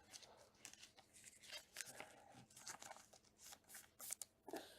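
Faint rustling, crinkling and small clicks of trading cards and their plastic sleeves and packaging being handled close to the microphone.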